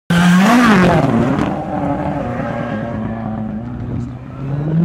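Rallycross race car engine revving, its pitch swinging up and down in the first second and a half, then running at a fairly steady pitch and climbing again near the end.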